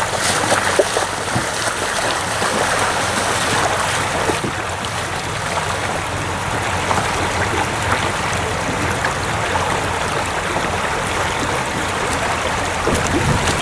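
Steady rush of flowing river water close to the microphone.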